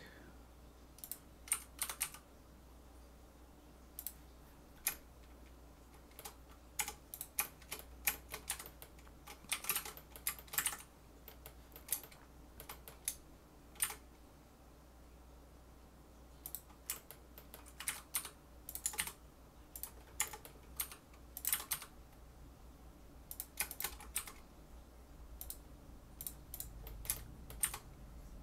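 Computer keyboard keys clicking in irregular clusters as shortcuts are entered, over the steady low hum of a room fan.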